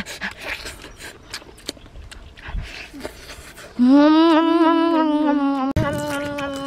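Wet chewing and crunching clicks of a boy eating cooked fish, then about four seconds in a loud, long hummed "mmm" with a slight wobble in pitch, broken briefly near the end and then held again.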